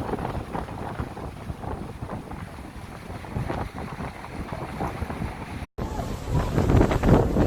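Rough surf washing against the shore with wind buffeting the microphone. The sound drops out for an instant about three-quarters of the way through, then comes back louder.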